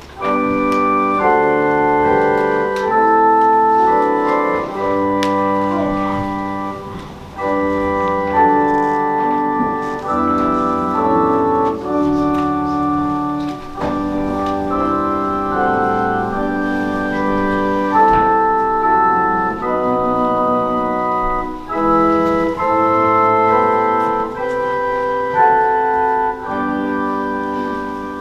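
Organ playing a slow hymn tune in held chords that change every second or so.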